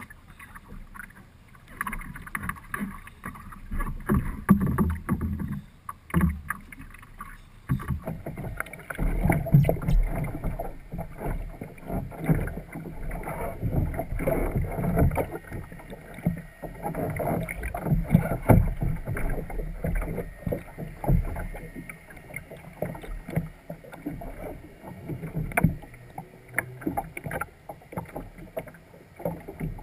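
Water sloshing and splashing around an upturned sea kayak, heard muffled through a bow-mounted camera that is mostly underwater, with many irregular knocks and bumps. It gets louder and busier about a quarter of the way in.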